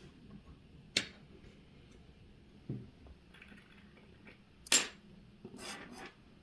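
Small hard objects handled on a watchmaker's bench: a sharp click about a second in, a dull knock, then a louder sharp click and a short rustle near the end.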